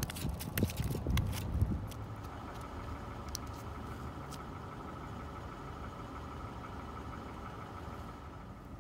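A freshly caught fish flopping on the ice, with a few sharp slaps in the first two seconds. Under it is the steady low hum of an idling vehicle engine.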